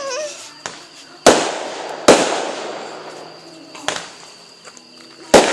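Fireworks going off: five sharp bangs, the loudest about a second in, two seconds in and near the end. Each is followed by a long fading tail of sound.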